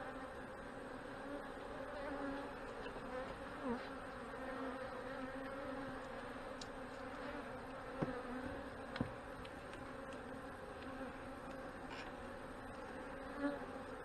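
Honey bees buzzing steadily around an open hive as frames are lifted out, a low even hum, with two light clicks about eight and nine seconds in.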